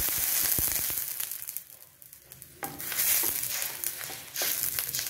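Water poured into a hot stainless-steel wok of sautéed onions, sizzling hard at first and dying down after about a second and a half. Then a wooden spatula stirring and scraping through the onions and water in the wok.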